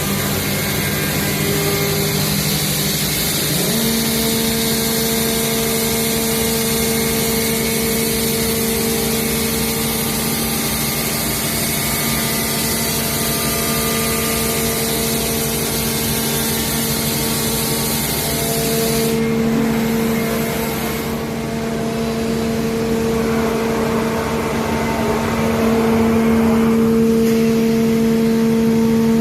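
Five-axis CNC router cutting wood: a steady spindle hum that steps up in pitch a few seconds in, over a loud hiss that drops away about two-thirds of the way through.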